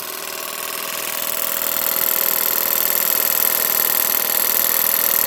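Early Stuart Star model steam engine running steadily on steam from its Stuart boiler, a smooth mechanical chatter with a high hiss. It grows louder about a second or two in. The engine, freshly rebuilt after being seized solid, is running well on its first test.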